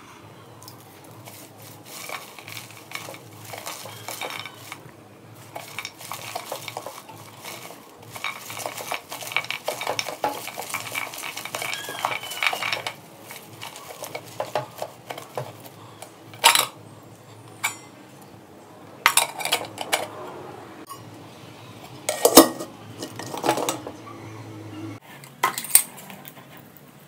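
Metal bowls and leafy greens being handled: a soft rustling of leaves, then several sharp metal clanks as the bowls knock together, the loudest about two-thirds of the way through.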